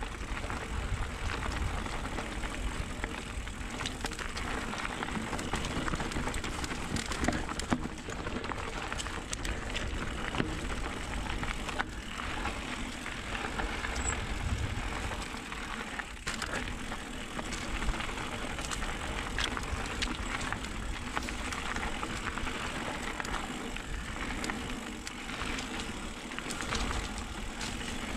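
Electric mountain bike riding down a dusty dirt singletrack: a steady rush of tyre and air noise, with frequent small clicks, knocks and rattles as the bike goes over bumps.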